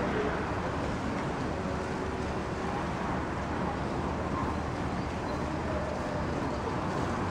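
Steady low rumble of distant traffic, an even urban background noise with no distinct events.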